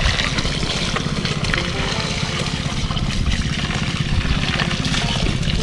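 Steady stream of water from a hose gushing into a plastic toy dump truck's bed, splashing and washing out wet mud and gravel.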